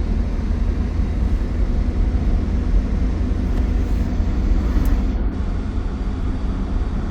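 A road vehicle driving along: a steady low rumble of engine and road noise.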